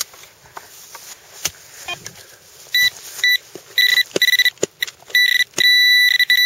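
Handheld metal-detecting pinpointer probing a freshly dug hole in soil: a high electronic beep that sounds in short bursts from about three seconds in, then holds as one steady tone near the end as the probe closes on a buried metal object. Before the beeping there are soft scrapes and knocks of hands and soil.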